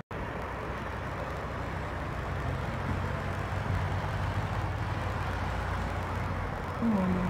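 Road traffic: a car driving past on the street, with steady road noise and a low engine hum. A short low-pitched tone begins near the end and is the loudest moment.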